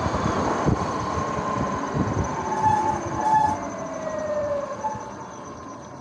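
Sur-Ron X electric dirt bike's motor and drivetrain whining, the pitch gliding down as the bike slows, with wind rumble on the microphone that eases off. Two short high chirps come near the middle.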